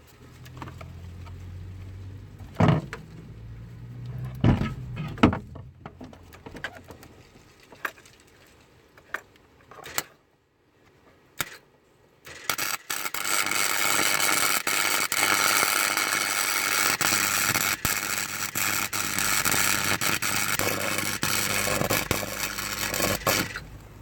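A few knocks over a low hum, then about halfway in an electric welding arc strikes and crackles and hisses steadily for about eleven seconds before cutting off near the end. The weld is burning a hole right through the car's thin floor metal.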